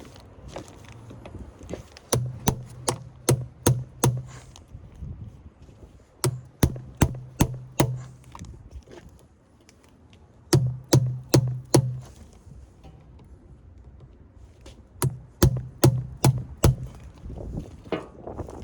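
Four bursts of sharp, hard strikes, five or six in quick succession in each, about three a second, with a low ringing hum under each burst: hammering on a forklift battery being broken apart for scrap.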